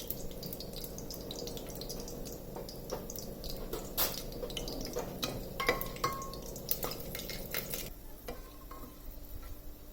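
Whole spices (bay leaf, cinnamon, cardamom, cloves, star anise) frying in hot oil in a pressure cooker, with scattered sharp crackles and pops over a steady low hum; the pops thin out and get quieter near the end.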